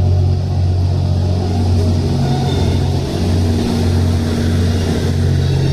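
Twilight Express Mizukaze (JR West 87 series diesel-electric hybrid) drawing slowly into the platform, its diesel generator engines running with a steady low drone.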